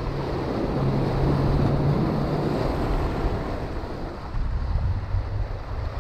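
Surf washing and foaming over shoreline rocks, with wind buffeting the microphone in a steady low rumble.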